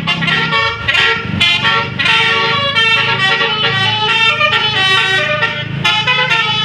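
Basuri telolet bus horn played without a break: several horn tones at once, sounding a run of changing notes like a tune.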